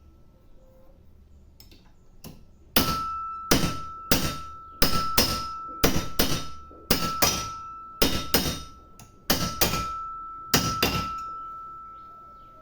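Hammer blows driving a bearing into its seat in an Electrolux LTE12 washing machine's drive mechanism, with the bearing not yet fully home. About sixteen sharp metallic strikes, mostly in quick pairs, from about three seconds in to about eleven seconds in, each ringing briefly.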